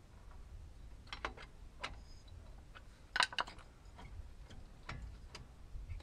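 Irregular sharp clicks and taps, about ten of them at uneven spacing, the loudest cluster a little past three seconds in, over a low steady hum.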